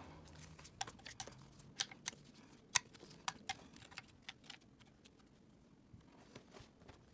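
Faint, scattered clicks and light taps of paper play-money notes being handled and laid out on a tray, with a quieter stretch for a couple of seconds before a few more taps near the end.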